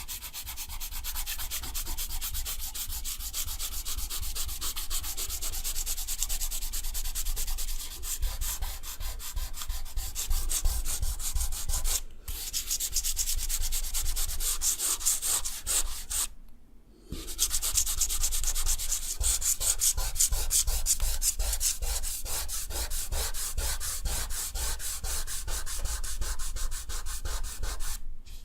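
Eraser rubbing rapidly back and forth on drawing paper, a dense run of quick strokes that stops briefly about twelve seconds in and again around sixteen to seventeen seconds.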